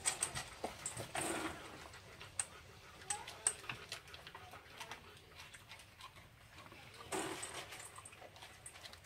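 Alaskan Malamute eating dry kibble: scattered crunches and clicks as it takes the pieces from a stainless steel bowl and from a hand.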